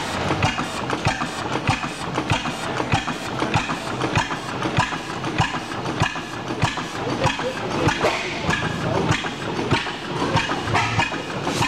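Several old International Harvester stationary engines running together: a dense, irregular clatter of sharp knocks and exhaust pops, several a second, from overlapping engines.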